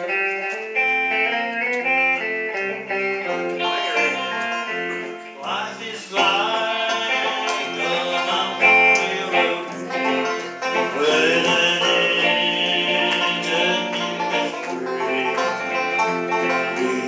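Live bluegrass-style southern gospel band playing: a five-string banjo picking, an archtop electric guitar and an electric bass. The playing fills out and grows louder about six seconds in.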